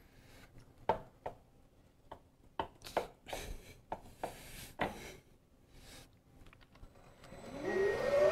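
Scattered clicks and knocks as the controls on the head of a Bridgeport milling machine are handled. About seven seconds in, the spindle motor starts and spins up with a rising whine.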